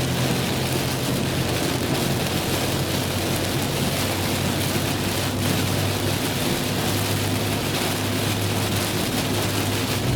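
Rain on a moving car, an even steady hiss, over the car's steady road and engine drone.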